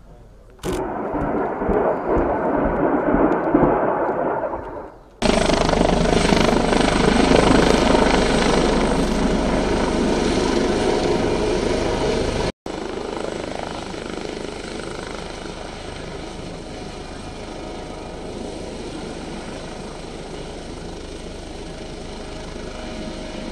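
Airbus H145M twin-turbine military helicopter's rotor and engines, heard over several cuts. A loud pulsing spell in the first few seconds gives way to a loud steady spell up to about the middle, then a quieter steady sound for the rest.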